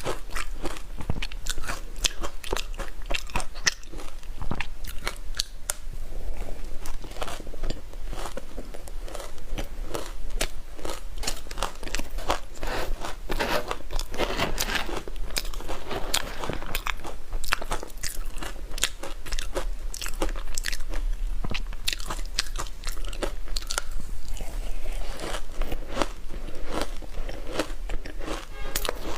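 Close-up crunching of ice dusted with matcha powder being bitten and chewed: a dense, irregular run of sharp crunches and crackles that keeps going without pause.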